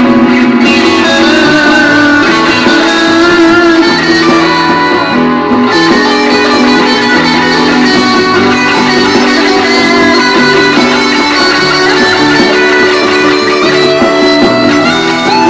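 Fender American Standard Stratocaster HSS electric guitar played without pause, held notes and chords changing every second or so.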